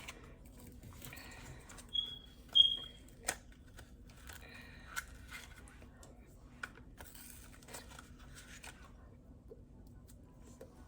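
Spoon scraping and tapping in a cup of water ice as bites are taken, with scattered sharp clicks and two short high pings about two seconds in.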